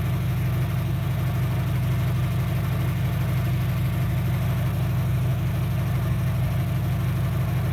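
2003 Dodge Neon's 2.0-litre four-cylinder idling steadily but rough. It is running on only two cylinders because two outputs of its ignition coil give no spark, so pulling those plug wires makes no change.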